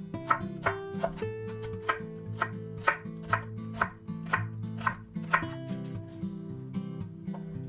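Kitchen knife chopping vegetables on a cutting board, about two even strokes a second, the strokes stopping a little past halfway.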